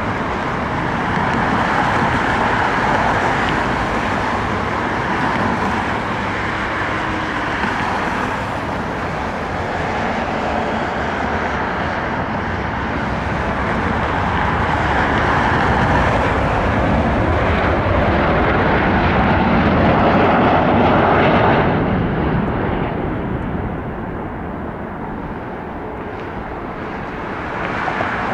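Airbus A350-1000's Rolls-Royce Trent XWB jet engines running, a steady loud rush that swells about two-thirds through and then fades in its upper part as the aircraft moves away.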